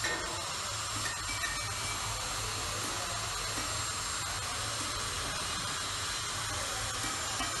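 Handheld electric rotary tool running at high speed, its bit grinding into a mold pattern being carved for brass casting: a steady hiss with a thin high whine.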